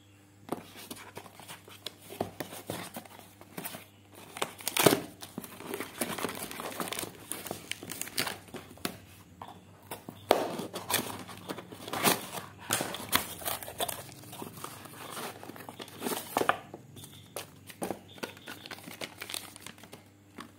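Paper mailer envelope being torn open and handled, crinkling irregularly, with sharper rips and crackles.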